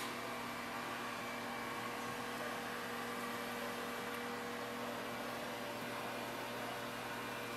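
Steady machine hum under an even hiss, with a few fixed droning tones and no changes: the room tone of running ventilation or electrical equipment.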